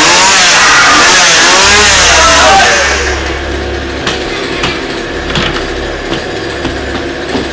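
Chainsaw engine revving loudly, its pitch rising and falling over and over, then dropping away a little under three seconds in. A low steady hum with scattered clicks follows.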